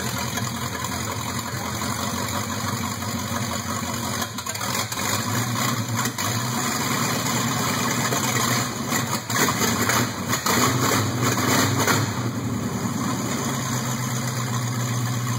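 Ford flathead V8 engine idling steadily. Partway through, its speed rises and falls a few times as the throttle is worked at the carburetor, then it settles back to idle.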